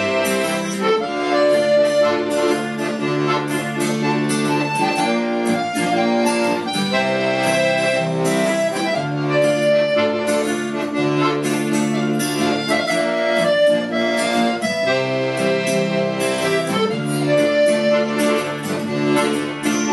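Bayan (chromatic button accordion) playing a melody in held notes and chords, with an acoustic guitar picking an accompaniment.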